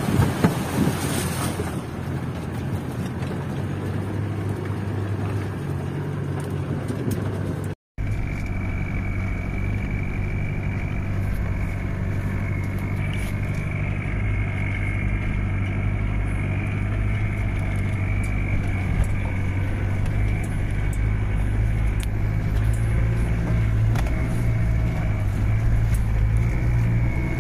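Land Rover Defender engine running steadily as it drives off-road, heard from inside the cabin. It opens with a noisy rush in the first couple of seconds. The sound drops out briefly about eight seconds in, then resumes as an even drone with a thin steady high whine above it.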